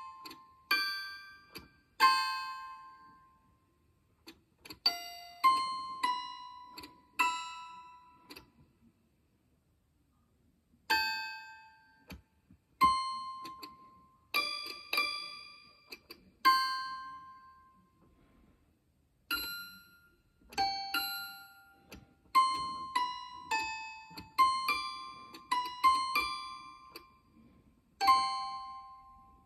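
Tiny piano played one note at a time in short, irregular runs of high, bell-like notes that each die away quickly, with a pause of about two seconds about ten seconds in. The notes are transcribed from the letters of a personal letter.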